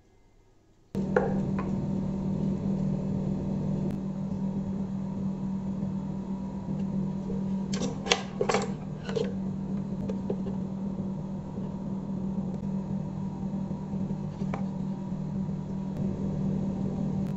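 A steady low hum that starts suddenly about a second in, with a few sharp clicks and knocks about eight seconds in as parts and wires are handled inside the wooden speaker box.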